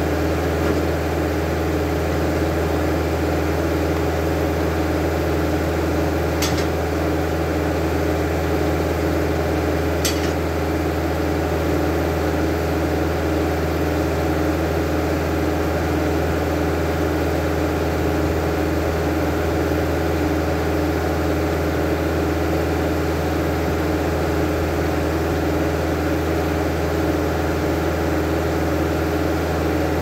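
Engine driving an antique Belsaw circle sawmill, running at a steady speed. Two short sharp clicks come about six and ten seconds in.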